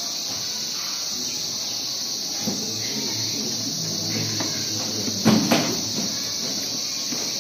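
Whiteboard duster rubbing across a whiteboard, with two sharp knocks of the duster against the board about two-thirds of the way in. Under it runs a steady high-pitched hiss.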